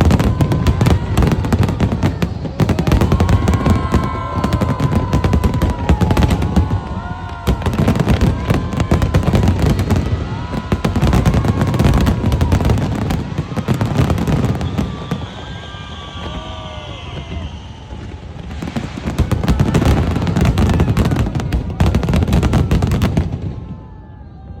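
Fireworks display: rapid, dense bangs and crackling from bursting shells in heavy waves, thinning out for a few seconds midway, then resuming and stopping abruptly about a second before the end.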